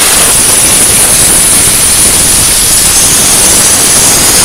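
Compressed-air blow gun blasting through the fins of a car air-conditioning condenser, a loud, steady hiss with a high whistle, blowing cleaning solvent and grime out of the core.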